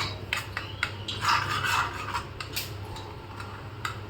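A metal spoon scraping and clinking against a cooking pan while stirring a thick jaggery-and-herb mixture as it cooks: irregular taps, with a longer scrape about a second and a half in, over a steady low hum.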